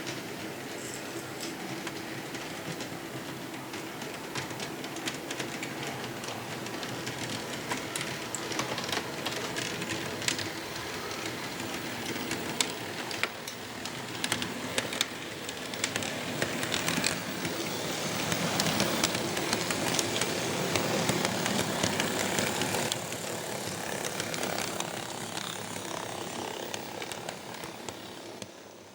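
Model diesel locomotive running along its track with a steady rattle and a scatter of small clicks. The rattle grows louder for several seconds past the middle, as if the model passes close by, then fades out.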